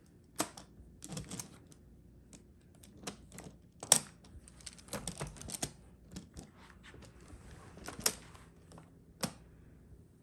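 Plastic magnetic building tiles clicking and clacking as they snap together and are set down, in irregular sharp clicks, the loudest about four seconds in.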